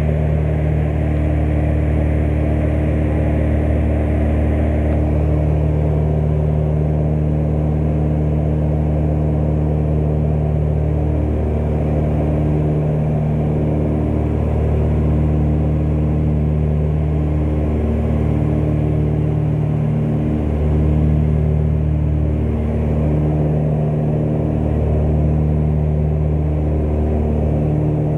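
Cabin drone of a Britten-Norman BN-2 Islander's twin piston engines and propellers in flight, a loud, steady deep hum over rushing air noise. In the second half the hum swells and fades slowly every couple of seconds.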